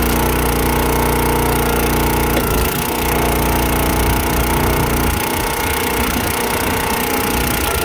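Countyline 25-ton log splitter's small gas engine running steadily while its hydraulic ram splits a log. The engine note shifts about three seconds in and again about five seconds in as the ram works and is released.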